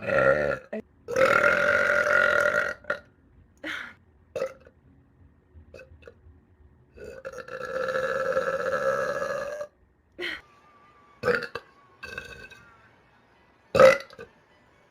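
A person burping: two long, drawn-out burps of about two to three seconds each, with several short burps before, between and after them.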